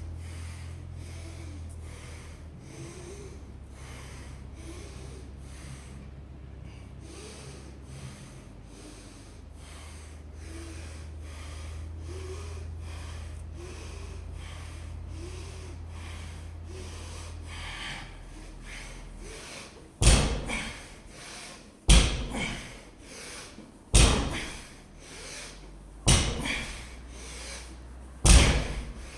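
A 225 lb loaded barbell thudding onto the floor five times, about two seconds apart, during a set of deadlift reps. Before the reps there is only a steady low hum.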